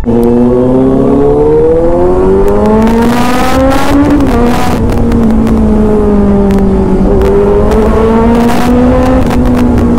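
Kawasaki Z900's inline-four engine revving hard as the motorcycle accelerates in second gear, its pitch climbing for about four seconds. It drops sharply at a shift into third, then holds a steady high-revving pull.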